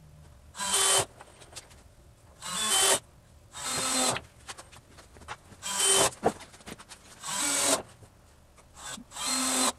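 Cordless drill driving screws into a wooden frame: six short runs of the motor, each rising in pitch and stopping abruptly, one to two seconds apart.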